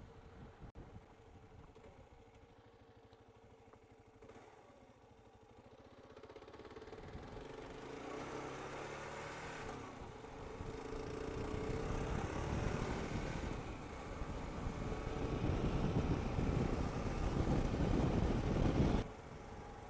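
Motorcycle engine and riding noise, low at first, then the engine rising in pitch as the bike accelerates and growing steadily louder. It cuts off suddenly near the end.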